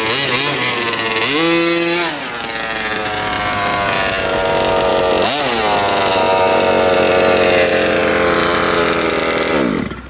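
Small 29cc two-stroke gas engine of a 1/5-scale HPI Baja 5T-type RC truck running at high revs, rising in pitch about a second in and dipping briefly about halfway through. Near the end the engine note falls and it stops.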